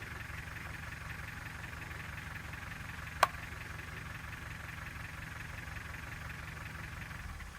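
A vehicle engine idles steadily, with a hiss above its low hum. One sharp click about three seconds in.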